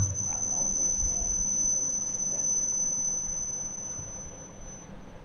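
A steady high-pitched whine that fades and stops near the end, with a low thump right at the start.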